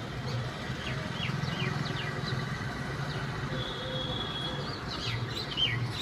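Myna birds chirping and calling in quick sharp notes, with one longer whistled note about midway, over a steady low rumble.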